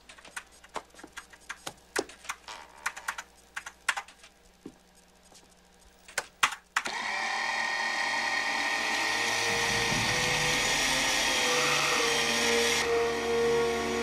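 Scattered clicks and taps of small tools on a workbench. About seven seconds in, an overhead robotic assembly arm starts up with a loud, steady mechanical whirring drone.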